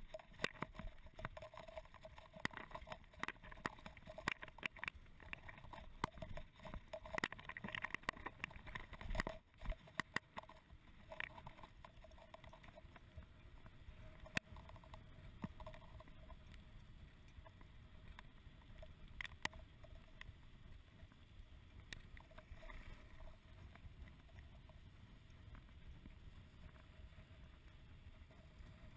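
Mountain bike rolling downhill, heard through a GoPro: the bike rattles and knocks over loose gravel for the first dozen seconds or so, then settles into a smoother, quieter tyre and wind noise on asphalt with only an occasional knock.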